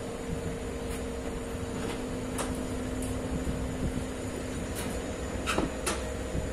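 Inside a passenger train coach on the move: a steady hum and low rumble, with a few sharp clicks and knocks, most of them in the second half.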